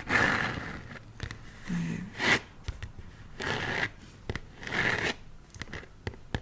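Hands rubbing and handling a makeup advent calendar box: about four soft swishing strokes across its surface, then a few light taps near the end.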